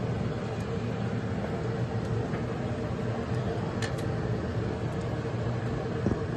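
A steady low rumbling hum, like a running machine, with a faint short click about four seconds in.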